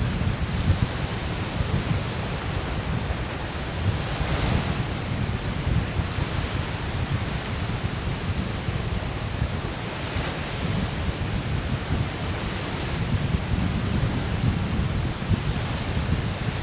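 Lake Michigan waves washing onto a sandy beach, the hiss of surf swelling up several times as waves break. Wind buffets the microphone in a steady low rumble throughout.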